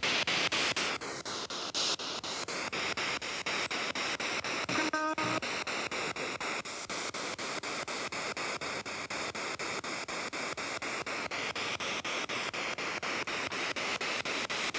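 Spirit box sweeping through radio stations, played through a small Bluetooth speaker: a steady hiss of static chopped rapidly several times a second as it jumps from channel to channel. A brief snatch of broadcast sound breaks through about five seconds in.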